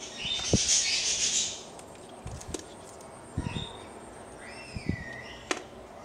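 Handling noise from servo jumper wires and plugs being moved about: a burst of rustling near the start, then scattered light knocks and a sharp click. A few short chirps, like a bird's, sound midway.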